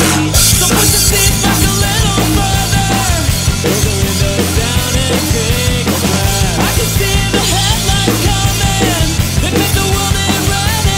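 Drum kit played hard along with a punk rock song, the beat driving under steady bass and gliding pitched parts of the band's recording.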